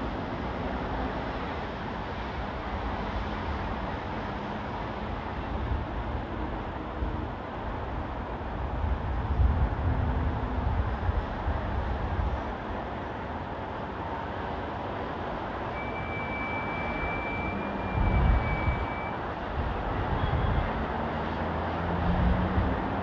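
Steady city road traffic noise, a continuous wash of passing vehicles with low rumbling swells now and then. A thin high squeal is heard for a few seconds about two-thirds of the way through.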